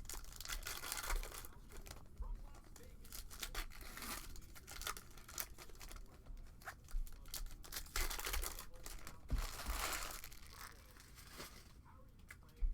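Trading-card pack wrappers being torn open and crinkled in the hands, in irregular rustling surges with small crackles and clicks as the cards are handled.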